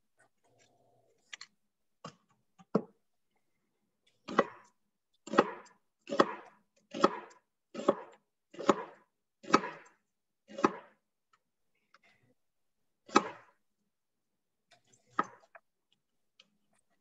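Large butcher knife slicing an onion into half-moons and knocking on a wooden cutting board: faint cuts at first, then a steady run of about eight cuts roughly one a second from about four seconds in, and two more, spaced out, near the end.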